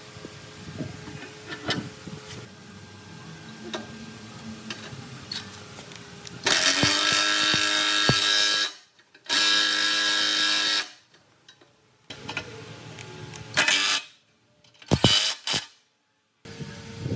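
Power tool switched on and off in short bursts: two runs of about two seconds each starting about six seconds in, then two brief bursts near the end. Quieter knocks and clicks of handling come before them.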